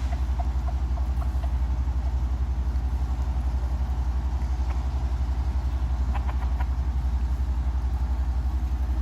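A motor vehicle engine idling: a steady low hum with an even, fast pulse that does not change.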